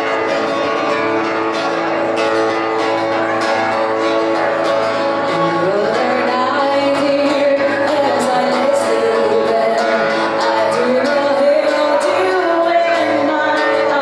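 Background music: a song with singing over guitar and a steady beat.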